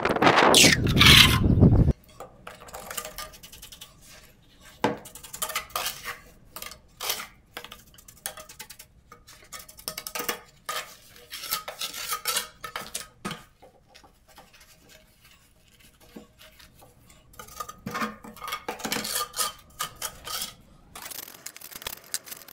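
A steel pointing trowel scraping and tapping as wet cement mortar is packed into a gap along a door frame: scattered short scrapes and light metallic clinks. It follows a loud rushing noise that cuts off suddenly about two seconds in.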